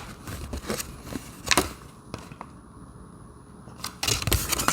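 Handling sounds of the anti-theft doorbell mount and its foam pads: scattered clicks and knocks, with a sharper knock about a second and a half in and a quick cluster of knocks near the end.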